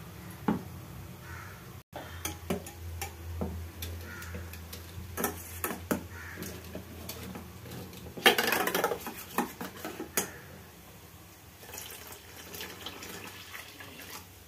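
Metal hand whisk clinking and scraping against a steel bowl as curd and gram-flour paste are beaten together, in quick irregular strokes. There is a louder burst of rapid whisking about eight seconds in.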